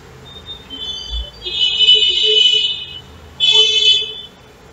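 Vehicle horn honking twice: a long honk of about a second and a half, then a shorter one.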